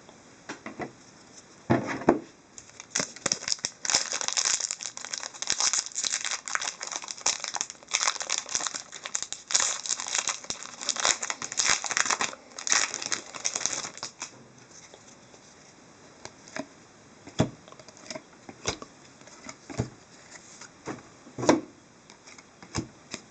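Hockey card pack wrappers being torn open and crinkled, a dense crackling for about ten seconds, then a few separate sharp taps and rustles.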